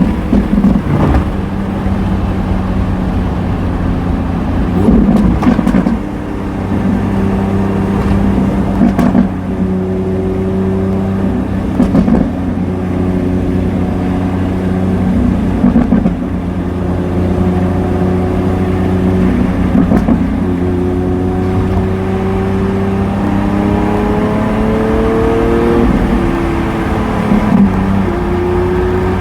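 Lamborghini Aventador S V12 running through a Power Craft aftermarket exhaust, a steady low drone broken every three to four seconds by short, sharp exhaust crackles. Near the end the engine note climbs a little, then drops back.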